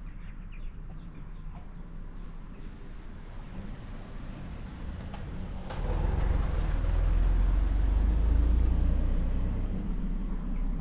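A car driving past, growing louder from about four seconds in, loudest past the middle, then easing off.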